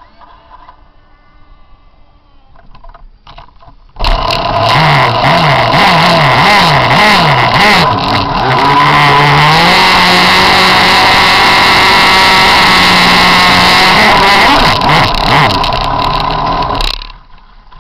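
RC jet boat's Zenoah two-stroke gas engine running very loud right beside the microphone. It comes in suddenly about four seconds in and is revved up and down about once a second for a few seconds. It is then held steady at high revs before dropping away near the end.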